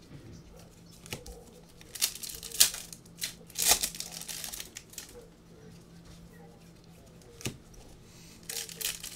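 Foil wrappers of Prizm basketball card packs crinkling and tearing as packs are opened and cards handled, in a string of short rustles, loudest a couple of seconds in.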